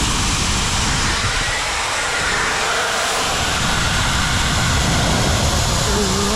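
Compressed air rushing steadily out of a Kobalt air compressor's tank as its pressure is let out before draining.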